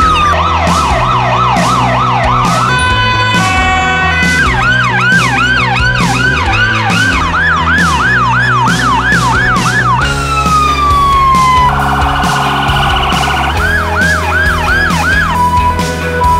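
Emergency vehicle sirens switching between fast yelp sweeps of about three a second, a held steady tone, a long falling wail and a harsh buzzing horn blast near the end, over background music with a steady beat.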